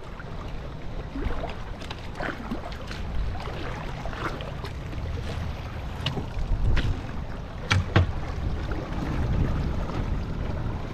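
Wind buffeting the microphone over water lapping and splashing around a small sailing boat, with occasional short slaps and knocks.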